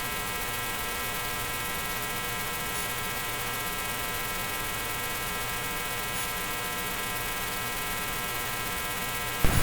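A steady electrical hum with a buzzing stack of even tones that does not change.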